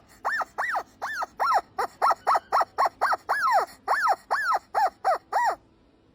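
Rubber squeaky dog toy squeezed over and over in quick succession, about three squeaks a second. Each squeak rises and then falls in pitch. The run stops shortly before the end.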